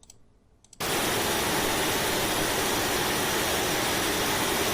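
Loud, steady hiss of noise from a previewed video clip's soundtrack, starting abruptly under a second in. It is the clip's noisy right channel, which drowns out the ambient sound on the left channel.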